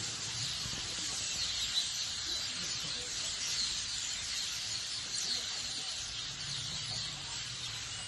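A dense chorus of hundreds of birds calling at once from the trees, a steady mass of high overlapping chirps and chatter.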